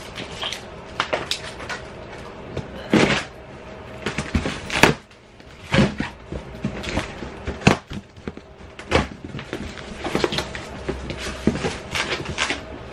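A cardboard box being opened and handled by hand: irregular rustling, scraping and knocking of cardboard.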